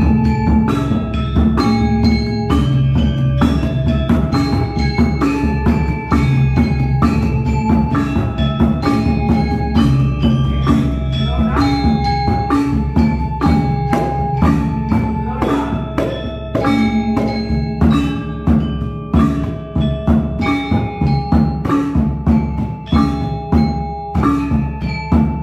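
A gamelan ensemble playing: bronze metallophone keys struck in a steady, even pulse of short pitched notes over sustained low gong and drum tones.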